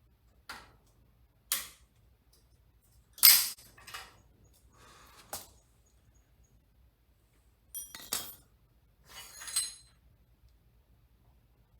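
Metal hand tools and parts clinking and knocking as they are handled: a series of separate short clinks, the loudest about three seconds in.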